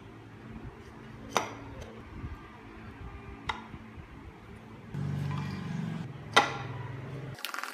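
Carved wooden parts of a model car knocking against each other as they are handled and fitted: three sharp knocks, the last the loudest. A low hum runs underneath and swells for about a second near the middle.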